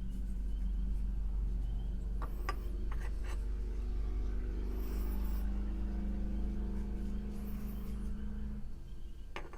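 A steady low mechanical hum with several pitched tones, which cuts off shortly before the end, with a few light clicks of small parts being handled a couple of seconds in.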